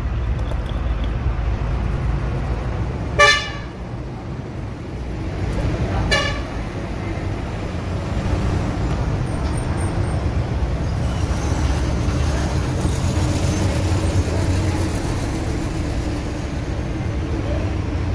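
Two short vehicle horn toots about three seconds apart, the first the louder, over a steady low rumble of road traffic.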